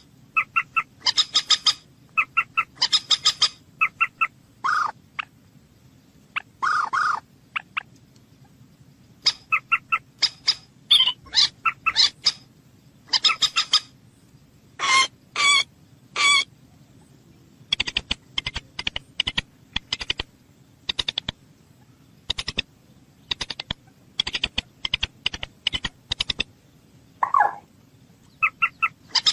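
Moorhen calling: clusters of short, sharp repeated notes with a few longer drawn notes, and a fast run of clipped clicking notes in the second half.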